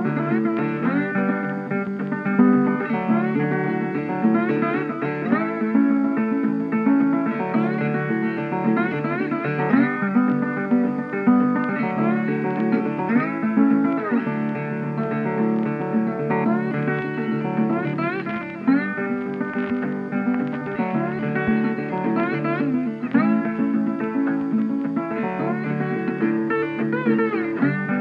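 Background guitar music: plucked guitar notes that bend and slide, over steady low accompaniment.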